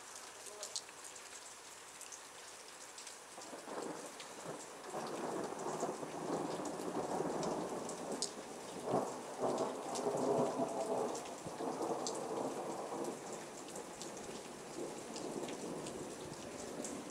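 Steady rain falling, with sharp taps of single drops, under a long rolling peal of thunder that builds about three seconds in, is loudest near the middle and slowly dies away.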